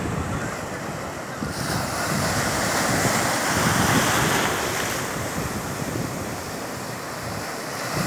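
Sea surf: waves breaking and washing up the shore, the hiss of the wash swelling about a second and a half in and ebbing after about five seconds. Wind buffets the microphone with a low rumble throughout.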